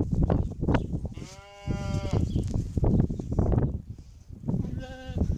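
Sheep bleating twice, a longer bleat just over a second in and a shorter one near the end, over repeated knocks and rustling of the handheld camera being moved and bumped.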